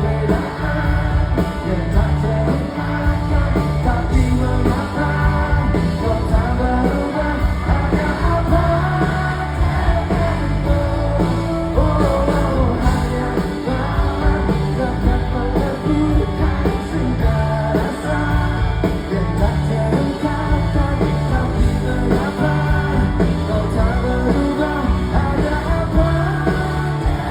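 Male lead vocalist singing a pop-rock song with a full band, bass and drums included.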